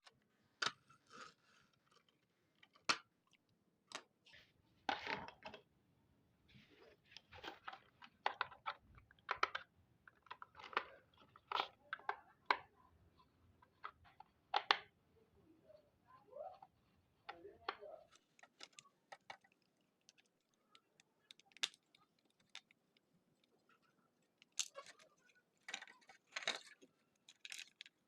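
Packaging of a toy car being handled and opened: irregular crinkles, rustles and sharp clicks, some in quick clusters.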